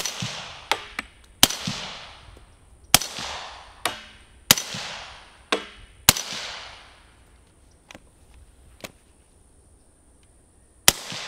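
Suppressed Ruger Mini-14 in 5.56/.223 firing single shots at a slow, steady pace. Five shots come about one every second and a half, then a pause of several seconds, then one more near the end. Each shot has a long echoing tail, and fainter clicks sound between some shots.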